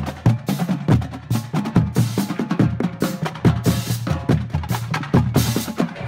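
High-school marching band drumline playing a cadence: bass drums and snares struck in a quick, dense rhythm, with several bright crashes on top.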